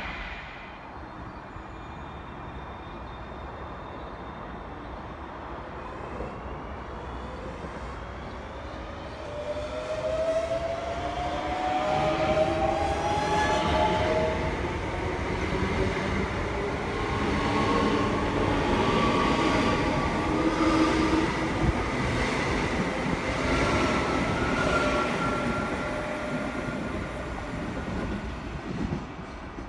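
Great Northern electric multiple unit running along the platform: rumble of wheels on the track with an electric motor whine that rises in pitch, growing louder as the train comes alongside.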